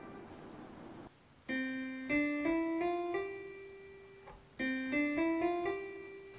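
Casio LK-520 light-navigation keyboard played in a piano voice: a short run of single notes stepping upward, played twice, each time ringing off afterwards.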